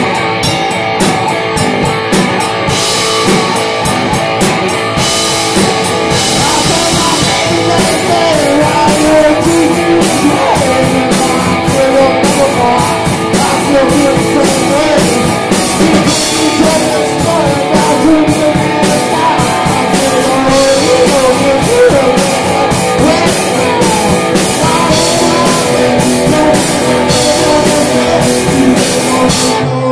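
A rock band playing live at full volume: electric guitar over a steady drum-kit beat, with a man singing.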